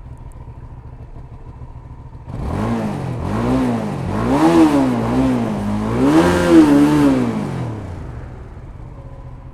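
Hyosung GT650R's 647 cc V-twin engine idling, then revved up and down several times, the last two revs loudest, before dropping back to idle near the end.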